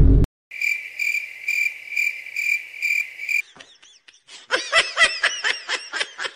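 A loud noisy burst cuts off at the start. Then a cricket-chirp sound effect runs, a steady high trill pulsing about twice a second: the stock 'awkward silence' gag. It stops after about three seconds, and a burst of high-pitched giggling follows.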